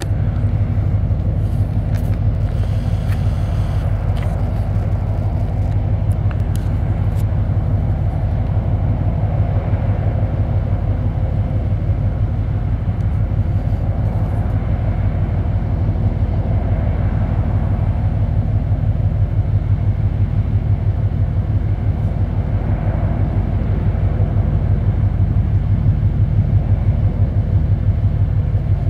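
Deep, steady engine rumble with a fast, even throb from a passing container ship and its tug.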